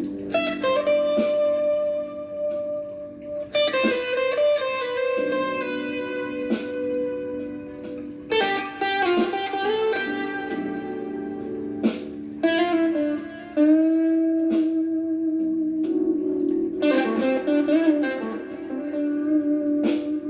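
Gibson Les Paul Traditional electric guitar playing a blues lead in separate phrases of sustained notes. Near the end a held note wavers with vibrato and bends.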